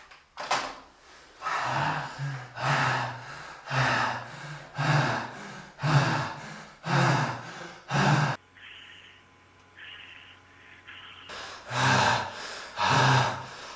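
Heavy breathing: deep, noisy breaths about one a second. They stop for about three seconds past the middle and then start again.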